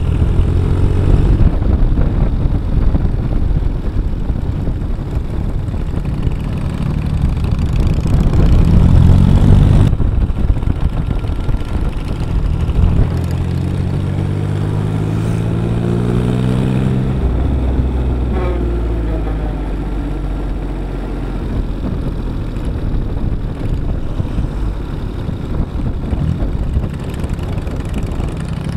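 Diesel motorcycle engine heard from on board while riding. Its pitch climbs steadily as the bike accelerates, then drops sharply at gear changes or when the throttle closes, about a third of the way in and again past halfway.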